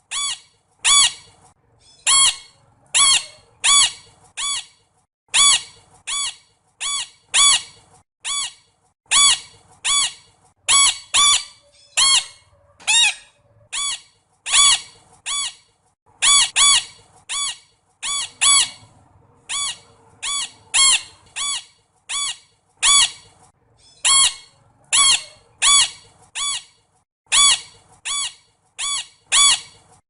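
A parrot squawking over and over: short calls at about two a second, mostly in clusters of two or three with brief pauses between.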